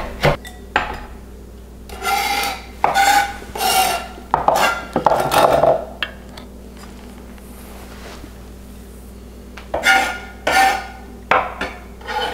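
Chef's knife scraping finely chopped parsley across a plastic cutting board in a run of short rasping strokes. After a pause of a few seconds come three more scrapes.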